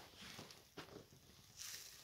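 Near silence: faint room tone with a few soft scuffs and a brief hiss near the end.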